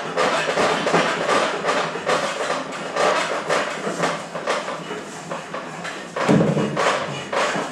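Workshop clatter: a steady run of knocks and taps, with a short low-pitched tone about six seconds in.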